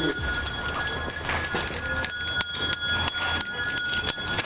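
Bells shaken repeatedly, with sharp strikes several times a second over a steady high ringing.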